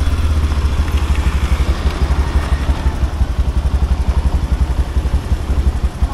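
Motorcycle engine running at low road speed, a steady low rumble with a quick even pulse from the exhaust.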